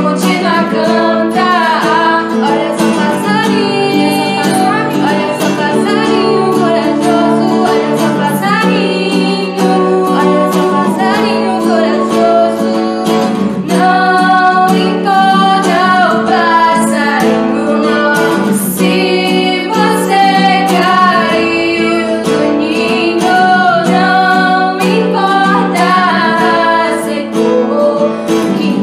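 Two female voices singing together to a strummed and plucked acoustic guitar.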